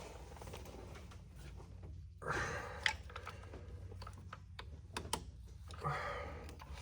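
Scattered light clicks and soft rustling as hands work hoses and fuel injector electrical connectors on a Dodge Ram's 3.6 V6, with a faint steady hum underneath.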